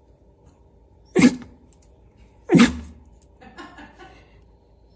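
A dachshund sneezing on command, twice: two short, sharp sneezes about a second and a half apart.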